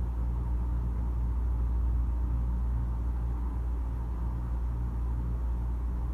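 Steady low background hum, even in level throughout, with no sneeze or other sudden sound.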